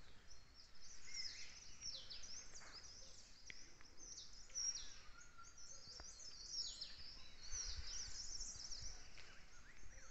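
Small songbirds chirping and twittering in the dawn chorus: many quick, high, overlapping calls, some sweeping downward, all faint.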